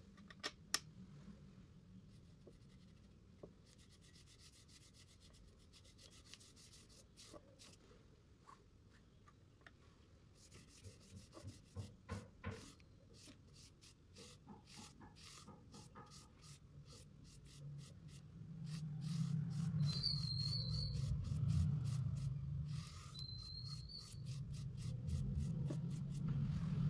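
Paintbrush bristles scrubbing orange watercolour across paper in a fast run of short, scratchy strokes. Later a louder low hum comes in underneath, with a few short high squeaks.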